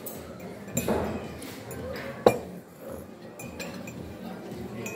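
Spoon and china clinking: a metal spoon against ceramic mugs and plates, with one sharp clink about two seconds in, the loudest sound.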